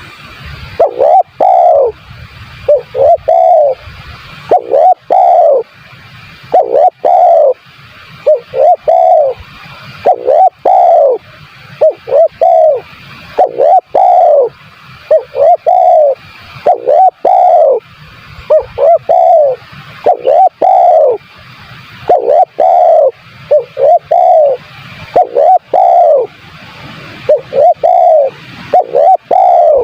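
Spotted dove (tekukur) cooing over and over: groups of short and longer coos, each note rising and then falling in pitch, following one another with hardly a pause.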